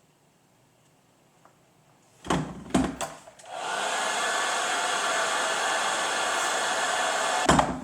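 Heat gun blowing steadily for about four seconds while shrinking black heat-shrink tubing onto an audio cable. A few knocks come just before it starts, and a louder knock as it cuts off near the end.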